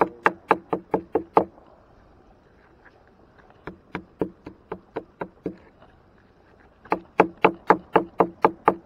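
A rusty iron axe head knocked repeatedly against a wooden lock beam to shake off mud and rust: sharp knocks about four a second, in three runs with short pauses between them.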